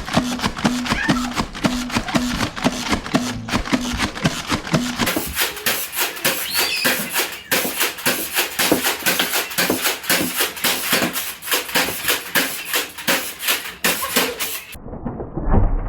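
Motorized Nerf blaster firing foam darts in a long rapid-fire burst, a steady string of sharp shots that cuts off suddenly near the end.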